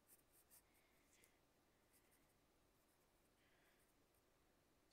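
Very faint scratching of a graphite pencil drawing on paper, a few short strokes against near silence.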